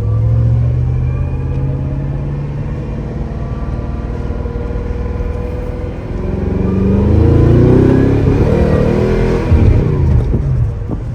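Mercedes-Benz SL500 (R129) V8 engine running under way, holding steady at first. From about six seconds in its pitch rises as the car accelerates, then drops again near the end, as at an automatic gearshift.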